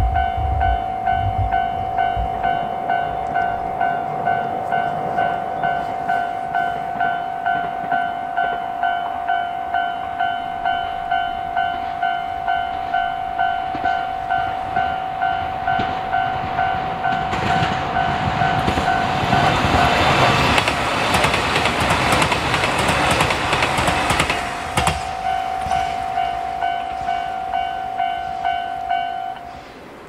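A level-crossing alarm bell rings steadily at about two strikes a second. About halfway through, a JR Hokkaido KiHa 261 series diesel limited express passes through the crossing: its rush of engine and wheel noise swells over the bell, then fades. The bell stops just before the end.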